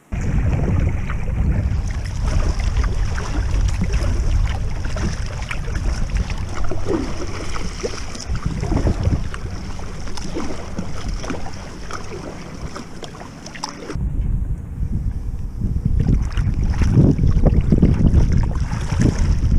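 Strong wind buffeting the microphone, with water slapping and splashing against a kayak's hull. The sound changes abruptly about fourteen seconds in and the wind is louder after that.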